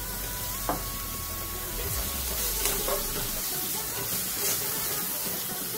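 Onion paste and ground spices sizzling in hot mustard oil in an aluminium kadai, with a steady hiss, while a metal spatula scrapes and stirs the mix against the pan.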